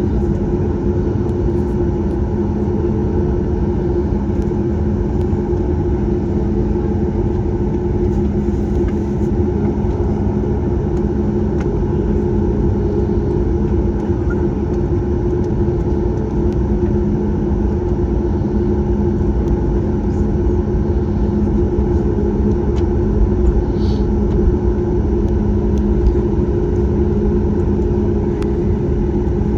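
Inside the cabin of a Boeing 737 MAX 8: the CFM LEAP-1B engines and airflow make a steady, even rumble with a low steady hum, neither rising nor falling.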